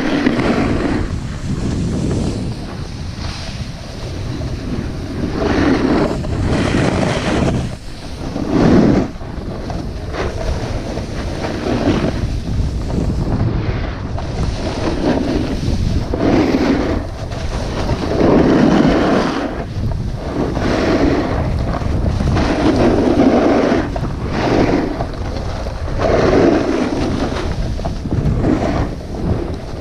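Wind rushing over the microphone of a camera carried down a ski run on a snowboard, with the board's scrape on the snow swelling and easing every second or two as it turns.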